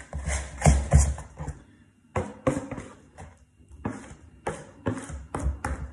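A spoon stirring and scraping a sticky biscuit-crumb mixture in a plastic mixing bowl: irregular knocks and scrapes with short pauses. Near the end the rest of the wet mixture is scraped out of a second bowl into the first.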